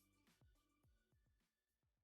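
Near silence, with only a barely audible trace of background music with a regular beat dying away.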